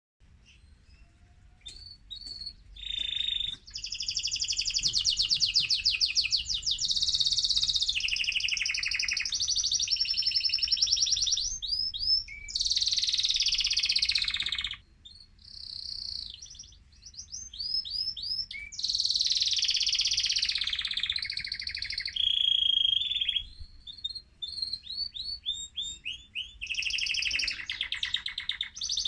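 Male mosaic canary in full, excited song: long phrases of rapid trills and rolls, one after another, starting about a second and a half in, with brief pauses about halfway and again near the end.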